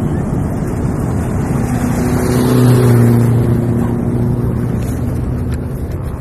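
Wind buffeting the microphone, with an engine's steady hum that swells about two seconds in and fades again by about five seconds.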